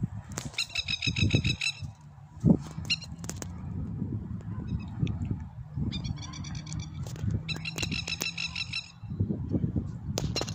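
Diesel locomotive's engine running with a steady low rumble and scattered knocks. Three times, a high, rapidly pulsing squeal comes in for about a second and stops.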